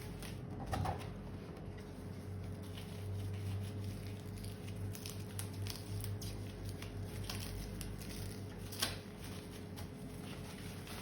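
Faint ticks and light handling of packaging during an unboxing, with one sharper click about nine seconds in, over a steady low electrical hum.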